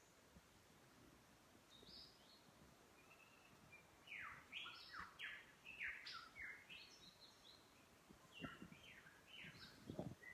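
Faint birdsong: a run of quick, downward-sliding calls starting about four seconds in, and more near the end, over a quiet background hiss.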